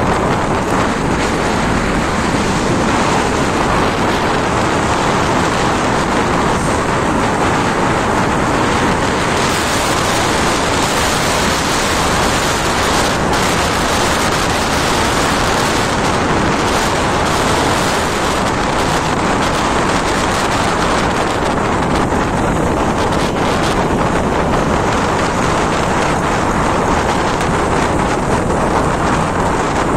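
Loud, steady wind rush on the microphone of a moving motorbike, with the bike's running engine and road noise underneath.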